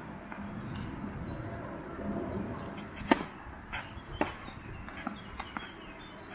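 Tennis serve: a sharp pop of the racket striking the ball about three seconds in, followed by several fainter knocks.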